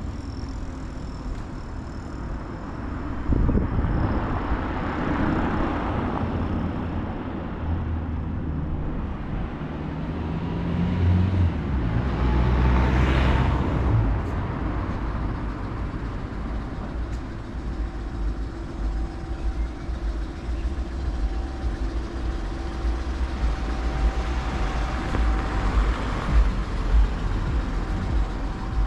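Street traffic: motor vehicles passing over a steady low rumble, with one pass a few seconds in and a louder one about halfway through.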